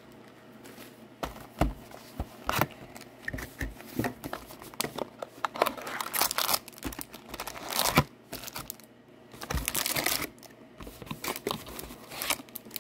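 Plastic shrink wrap crinkling and tearing as a 2023-24 Upper Deck Series 2 hockey card box is unwrapped, then the cardboard box opened and the foil packs inside handled. The irregular crackles and rustles come in clusters, with the sharpest snap about eight seconds in.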